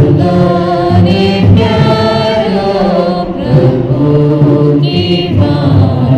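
Background music: a song with singing voices.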